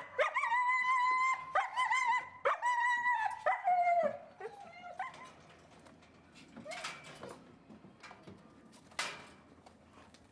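German shepherd puppy whining: about four long, high whines in a row, the last one falling in pitch, then quieter, with a couple of short clattering noises later on.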